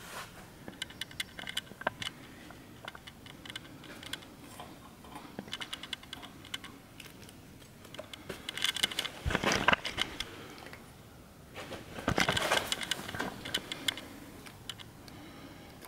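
Small irregular clicks and rustles of handling close to the microphone, with two louder rustling stretches about halfway through and again about three-quarters of the way through.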